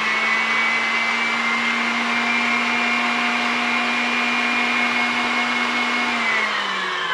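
KitchenAid stand mixer running at high speed, its wire whisk beating heavy cream and powdered sugar into whipped cream: a steady motor whine that drops in pitch about six seconds in as the speed is turned down.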